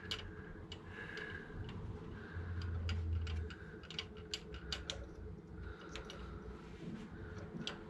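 Irregular light clicks and taps of hand tools working at a stuck thermostat housing on an MGA 1600 engine, with a brief low rumble in the middle.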